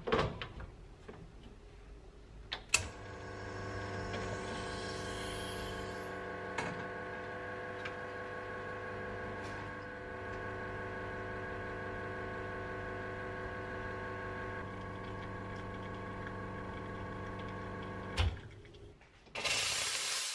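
An electric appliance hums steadily for about fifteen seconds, starting a few seconds in and stopping with a knock, followed by a short hiss near the end.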